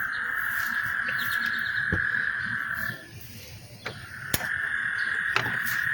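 A chorus of frogs calling steadily in a continuous high trill. It drops out about three seconds in and resumes under a second later, with a few sharp clicks over it.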